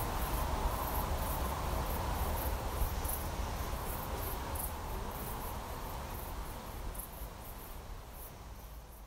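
Summer countryside ambience: insects chirping in short, irregular high-pitched bursts over a steady low rumble, gradually fading out.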